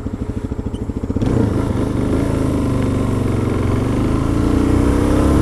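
Motorcycle engine running at low revs with distinct, even exhaust pulses, then accelerating about a second in, its pitch rising steadily as it pulls through the gear, with wind rush over the microphone.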